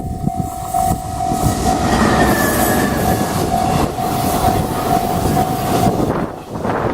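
Freight train rolling past over a level crossing, its wheels clattering on the rails, while the crossing's warning bell rings in steady repeated dings that stop about six seconds in.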